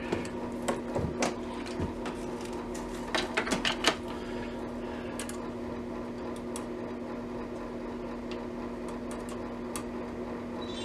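Light clicks and taps of small tools and radio parts being handled, in clusters over the first four seconds, over a steady low hum.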